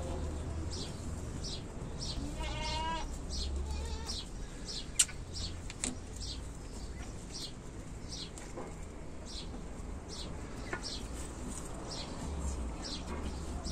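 A goat bleats once, a short wavering bleat a little over two seconds in. Short high chirps repeat about once a second throughout, and there is a sharp click about five seconds in.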